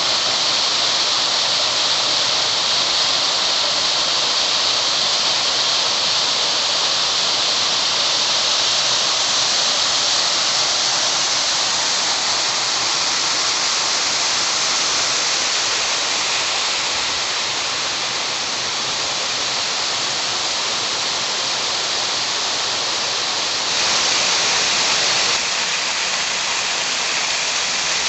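Steady rushing of a waterfall, an even hiss of falling water. It grows briefly louder for about a second and a half near the end.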